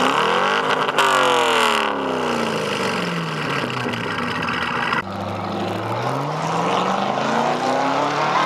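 A sports car's engine revved while standing, heard close at its quad exhaust tips. The pitch climbs sharply in the first second and sinks back over the next few seconds, then climbs again more slowly in a second rev.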